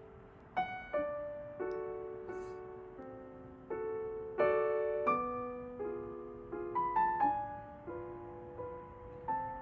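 Soft background piano music: slow, gentle chords and single notes, each note dying away before the next.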